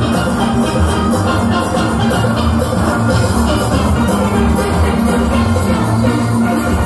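A large steelband of massed steel pans playing a soca arrangement live, over a drum kit and percussion keeping a steady driving beat.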